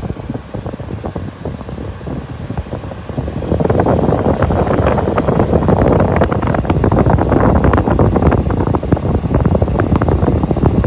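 Frigidaire FFRA051WAE window air conditioner running, its fan's airflow buffeting the microphone in a gusty rush. The rush grows louder about three and a half seconds in.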